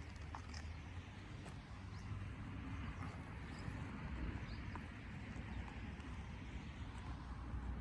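Seaside outdoor ambience: a steady, uneven low rumble with a light hiss over it, and a few faint, short high chirps scattered through.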